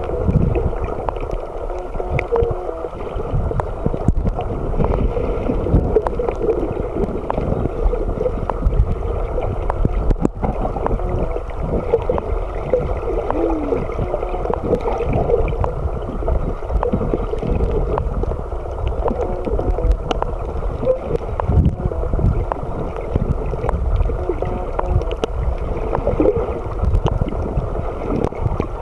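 Muffled underwater water noise, a steady, shifting gurgling and sloshing heard through a camera's sealed underwater housing just below the surface.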